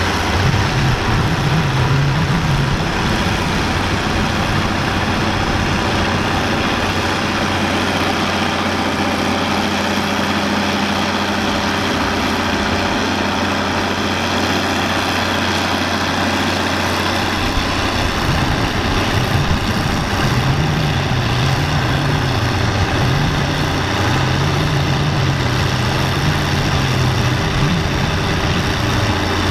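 Allis-Chalmers D21's six-cylinder diesel engine running under load as the tractor pulls the weight sled, its pitch wavering up and down near the start and again through the second half.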